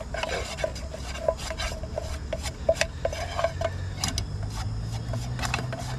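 A spatula scraping and stirring a butter-and-flour roux in a thin camping frying pan: a quick, uneven run of scrapes and light taps against the pan, with a steady low rumble underneath.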